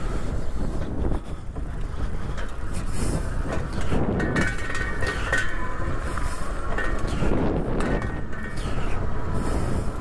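Windone K20 electric bike being ridden over rough ground, its loose front fender rattling loudly over a rumble of tyre noise. A thin high whine joins about halfway through.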